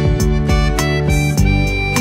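Instrumental music: the opening of a pop ballad, with held melody notes over guitar and a steady beat.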